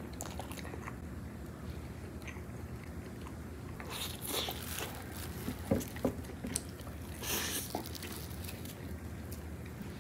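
Chewing and biting into a rice musubi close to the microphone, with scattered sharp mouth clicks and two short louder noisy spells, about four and about seven seconds in.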